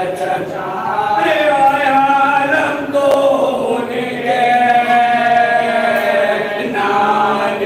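A group of men chanting a marsiya, a Shia mourning elegy, unaccompanied and in unison, in a slow melody with long held notes.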